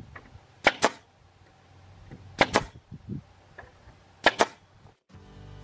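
Pneumatic nail gun firing into a plywood sheet, three sharp double cracks spaced a little under two seconds apart. Music starts just before the end.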